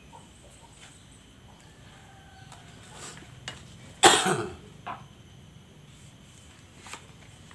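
A single short cough about four seconds in, with a few faint clicks or taps around it.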